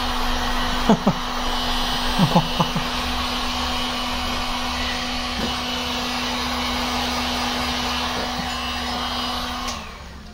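Electric heat gun blowing hot air onto the car's rear quarter panel to warm the paint and metal for paintless dent repair: a steady rushing of air with a motor hum. It is switched off near the end and winds down.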